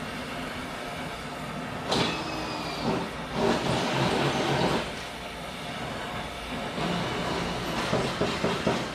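Metal parts clanking during race-car teardown over a steady background hum: a sharp ringing metal clank about two seconds in, a second or so of loud rushing noise midway, and several quick knocks near the end.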